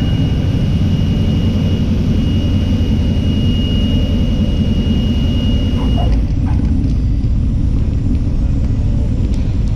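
Light single-engine propeller aircraft's engine and propeller running with a loud, steady drone, a thin steady high tone sounding over it until about six seconds in.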